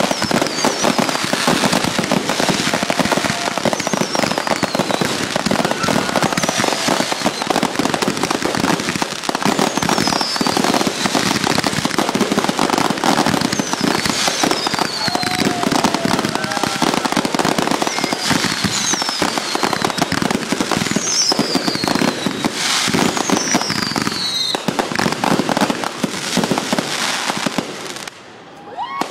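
Consumer fireworks going off in a long, dense barrage of crackling and popping, with high whistles falling in pitch every couple of seconds. The barrage stops suddenly near the end.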